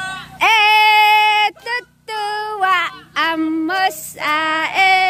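A high voice singing long held notes, in several phrases broken by short pauses for breath.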